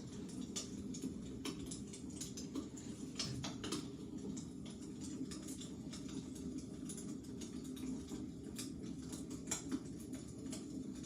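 Wood fire crackling in a fireplace: irregular sharp pops and snaps, a few every second, over a steady low hum.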